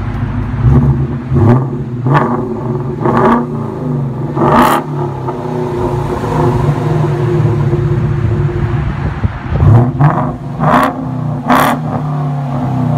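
2017 Ford Mustang GT's 5.0 L V8 through a Kinney's Street Demon custom performance exhaust, idling and revved in short throttle blips. There are about four blips, then a few seconds of steady idle, then another three or four quick blips near the end.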